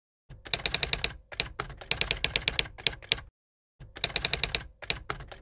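Typewriter keystrokes clacking rapidly, several a second, in two runs with a short break a little past three seconds in, in step with text typing out on the screen.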